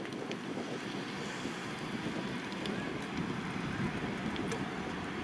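Wind buffeting the microphone: a steady rough rumble that grows slowly louder, with a few faint ticks.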